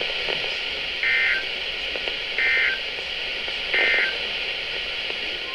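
NOAA Weather Radio SAME digital alert header: three short, buzzy two-tone data bursts about 1.4 s apart over radio hiss. They code the tornado warning that follows. The steady warning alarm tone starts right at the end.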